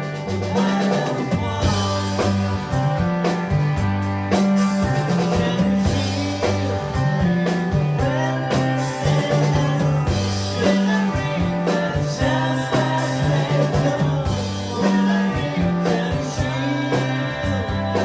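A live band playing a rock song, with a singer over a stepping bass line and steady drum hits.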